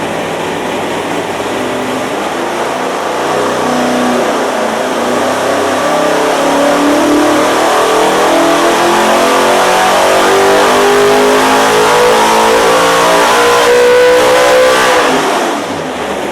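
LS V8 in a Chevy Vega, breathing through a Mast 4500 intake and 105 mm throttle body, pulled at full throttle. The revs climb steadily for about thirteen seconds, then drop away suddenly near the end. The crew reads the run as apparently rich, the engine unable to get enough air through this intake.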